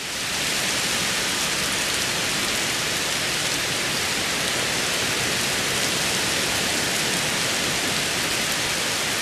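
Heavy downpour of rain falling steadily, a dense even hiss. It fades in at the very start.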